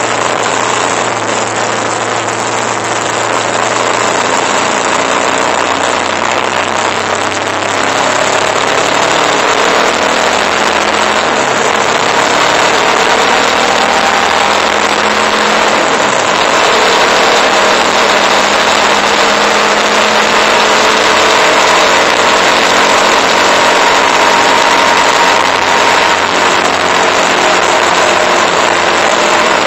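Motorcycle engine running under way with steady wind and road noise rushing over the microphone. The engine pitch drops and climbs again a couple of times, around 11 and 16 seconds in, as the bike shifts gears and picks up speed, and the noise grows louder after about 8 seconds.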